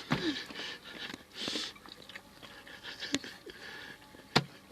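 A child eating instant noodles: chewing sounds and a few sharp clicks of cutlery against the bowl, the loudest near the end.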